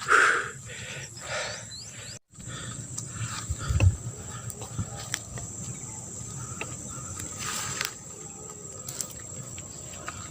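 Crickets chirping in a steady high-pitched trill, with occasional footstep thumps and scuffs on the trail. The sound cuts out briefly about two seconds in.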